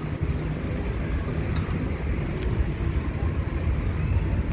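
Steady low rumble of outdoor background noise, with a few faint high ticks about halfway through.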